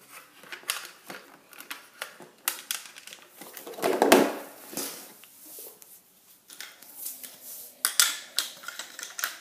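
Irregular clicks, knocks and clatters of plastic rainbow loom pieces and supplies being handled and set down on a tile floor, with a louder knock about four seconds in and a quick run of clicks near eight seconds in.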